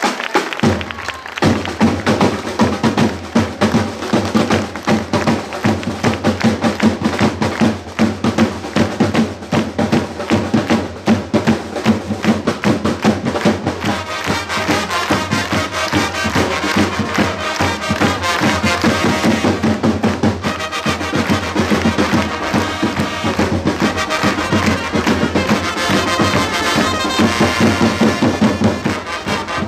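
A corps of rope-tensioned side drums beating a fast, steady march rhythm, joined about halfway through by a section of trumpets playing a fanfare over the drumming.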